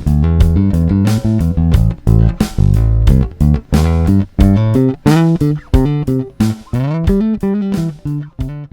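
Moon JB-4 Classic, a Jazz Bass-style four-string electric bass, playing a quick rhythmic line of short plucked notes with sharp, bright attacks.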